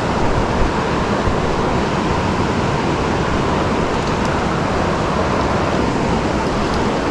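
Steady rush of a small creek's flowing water.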